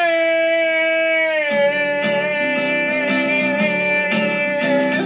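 A man singing one long held note to acoustic guitar. The guitar comes in picking chords underneath about a second and a half in.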